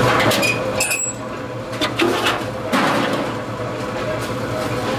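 Workshop machine motor humming steadily, fading about a second in, with a few sharp metallic clinks and knocks as a sheet-steel motorcycle fuel tank is handled and shifted under the press spindle.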